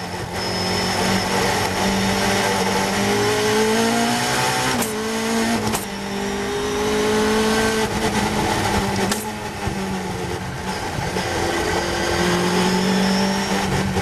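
Caterham Seven's Cosworth 2.4 four-cylinder race engine pulling hard on track. The revs climb, with sharp upshifts about five and six seconds in, then fall about nine seconds in as the car slows for a corner. A steady rush of wind and road noise runs underneath in the open cockpit.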